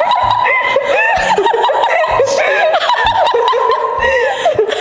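Women laughing: high-pitched snickers and giggles that run on without a break.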